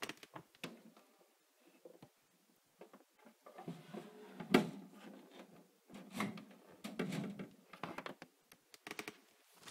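The lid of a 20-gallon long terrarium being worked loose and slid open: a series of clicks, knocks and scraping rattles, with one sharp knock about four and a half seconds in.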